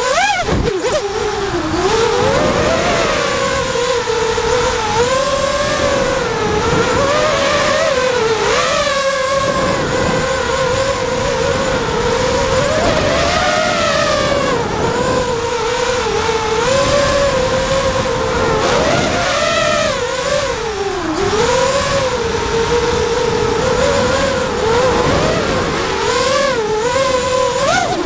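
The Cobra 2204 2300KV brushless motors and DAL 5045 tri-blade propellers of a 210-size FPV racing quadcopter, whining on a 4S battery. The pitch swoops up and down without pause as the throttle is worked, with sharp drops where the throttle is chopped, heard through the onboard GoPro.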